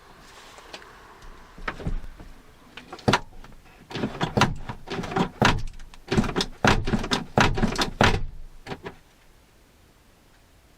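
Clicks and knocks of hands working on the rear door of a Land Rover Discovery 2 as trim and the window frame are fitted back: a few separate knocks, then a busy run of clicks and knocks lasting about five seconds.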